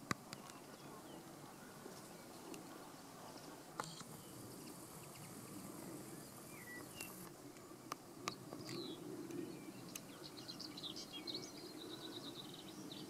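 Skylark singing faintly at a distance: scattered high chirps, then a quick run of twittering notes about ten seconds in. A few sharp clicks stand out, over a faint low background hum.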